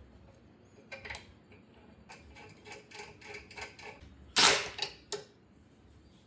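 Light metal clicks and taps as a wheel hub is worked on the splined rear axle, with one short louder scrape about four and a half seconds in.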